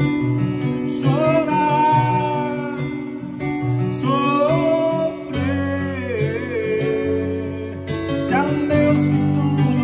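A man singing a Portuguese-language gospel song, held notes with a wavering pitch, accompanying himself with sustained chords on an electric keyboard.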